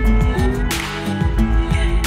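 Background music with a steady beat and sliding lead notes.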